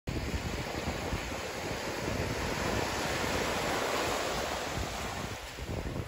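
Small waves breaking and washing up a sandy beach, the wash swelling about midway through, with wind buffeting the microphone.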